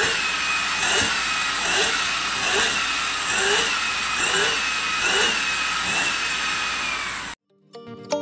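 LG cordless stick vacuum running with a steady whine whose pitch wavers about once a second. It cuts off abruptly near the end.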